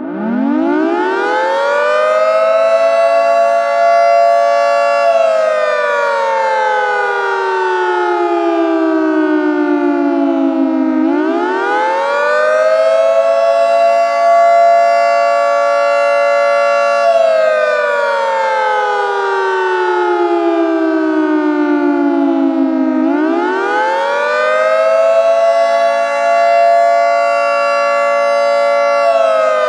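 Synthesized 2T22 two-tone siren sounding a close two-note chord, winding up three times: each rise starts slow, climbs, then eases gradually into the peak pitch, the way a siren with an underpowered motor spins up. It holds at the top for a second or two, then slides slowly down over about six seconds. The third wind-down begins near the end.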